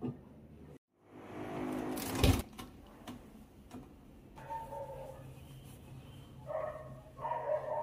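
A dishwasher rack rolls out on its rails with a rising rumble and stops with a sharp clack about two seconds in. From about halfway, a wavering, whine-like pitched sound comes and goes over a low steady hum.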